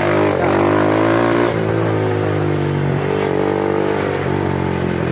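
Bajaj Pulsar 180's single-cylinder engine running while riding, heard from the saddle. The engine note rises and eases a little with the throttle over a steady rush of road noise.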